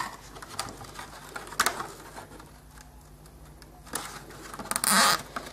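Small plastic zip ties being handled and threaded through holes in a plastic RC car body shell: faint scattered clicks and rustling, with a louder brief scrape near the end.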